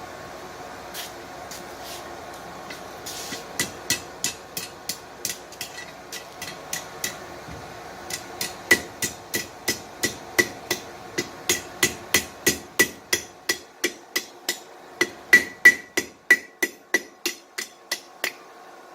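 Hand hammer striking hot steel on an anvil, each blow with a short metallic ring. A few scattered blows lead into steady hammering at about three blows a second, which breaks off briefly about a third of the way through and then resumes.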